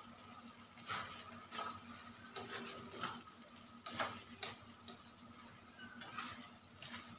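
A spatula scraping and tapping against a metal wok as beef and bitter gourd are stir-fried, in irregular strokes about one or two a second. A faint steady hum lies underneath.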